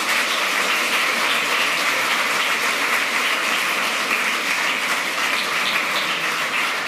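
Audience applauding: dense, even clapping of many hands.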